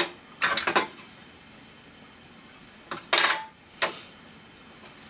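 Metal clicks and rattles from the journal compartment of a restored brass National Cash Register Model 542 as its cover is handled: two short bursts in the first second, then two more about three seconds in.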